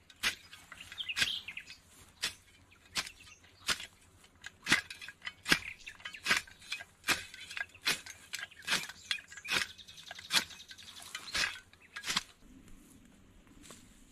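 About fifteen sharp knocks or strikes in a steady rhythm, roughly one every 0.8 seconds, stopping about 12 seconds in.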